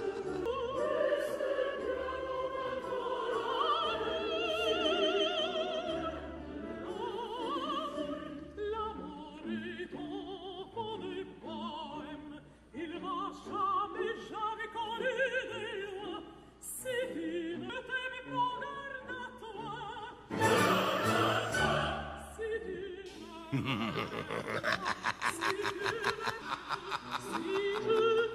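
Operatic music with a classical singing voice held in wide vibrato. A harsher, noisier stretch comes in about two-thirds of the way through and again over the last few seconds.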